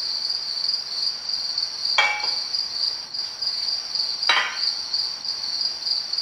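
Two metal clanks about two seconds apart, each ringing briefly, as engine cylinder sleeves are set down on a steel-topped welding table. Crickets chirp steadily underneath.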